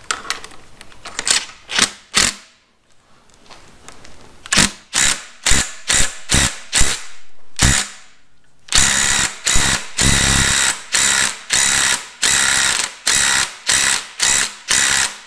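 A 3/8-inch ratchet turning the forcing screw of a harmonic balancer puller, drawing the balancer off an LS engine's crankshaft. It clicks in short spells, pauses for about two seconds, and from about halfway on settles into steady, louder strokes about two a second.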